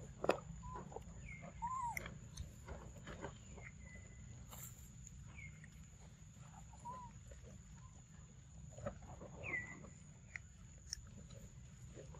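A macaque chewing and smacking on a soft papaya, with scattered wet clicks. Short whistled bird calls come now and then over a steady high insect hum.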